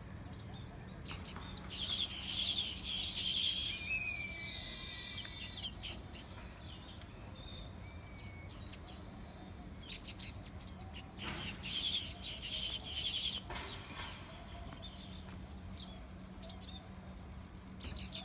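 Several small birds chirping and twittering in quick runs, busiest in two stretches, with a steady buzzy trill lasting about a second.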